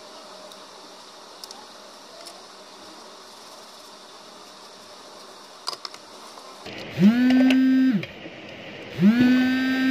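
A digital multimeter's continuity buzzer beeping twice, each a low buzzy beep about a second long that slides up in pitch as it starts and down as it stops, as the probes touch the phone board; in continuity mode the beep means the probes see almost no resistance, the sign of the short being traced. Before that, faint steady hiss with a few small handling clicks.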